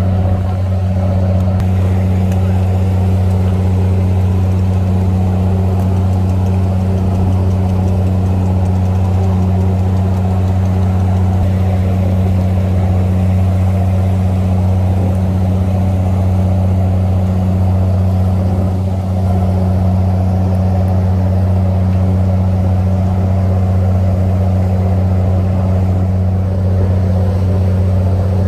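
A boat engine running steadily with a deep, even hum that holds the same pitch throughout.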